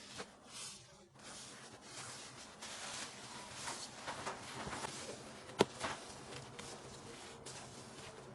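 Quiet kitchen handling noises: soft rustling and scraping, with one sharp tap about five and a half seconds in.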